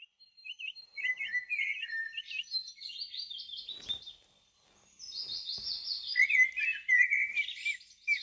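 Several songbirds singing and chirping over one another in quick, warbling phrases, with a brief lull about four seconds in.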